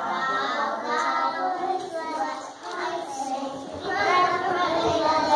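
A group of young children singing a song together, with a short break between phrases a little past halfway.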